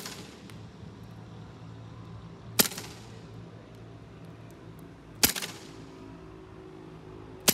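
Airsoft pistol fired in single shots, one sharp crack about every two and a half seconds, each with a brief echo.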